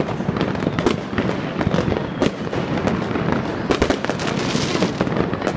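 Fireworks going off all around in a dense, unbroken run of bangs and crackles, with a few louder cracks standing out.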